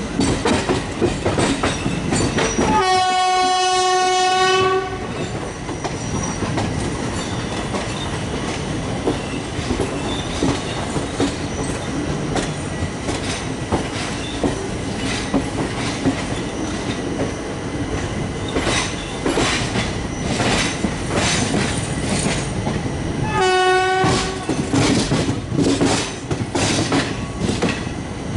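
Express train rolling into the station with steady rumble and repeated clickety-clack of wheels over rail joints. Its locomotive horn sounds one steady blast of about two seconds a few seconds in, and a second, shorter blast near the end.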